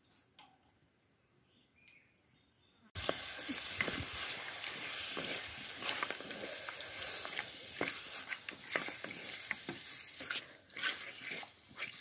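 Raw chicken pieces frying in hot oil in an aluminium kadai: the sizzle starts suddenly about three seconds in as the chicken hits the oil, then runs on with crackling spatters and a spatula stirring and scraping the pieces around the pan.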